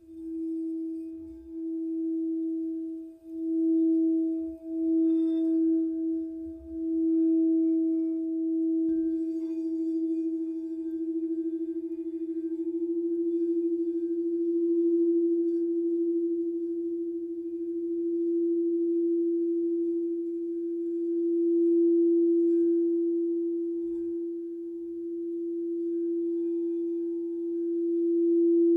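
Singing bowl sustaining one low, nearly pure tone with a faint higher overtone. It pulses about once a second at first, then settles into a steady ring that slowly swells and fades.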